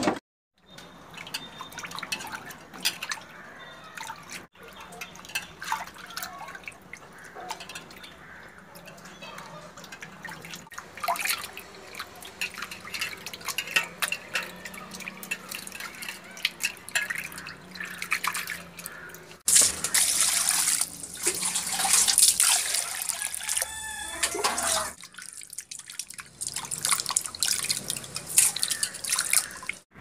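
Water splashing and dripping in a steel bowl as hands rinse raw fish pieces, with many small splashes and clicks and a louder spell of splashing a little past the middle.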